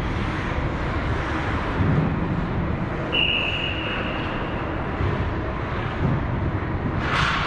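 Steady ice-rink noise, with a hockey referee's whistle blown once about three seconds in as a single high tone that fades out over about two seconds. A short hissing burst comes near the end.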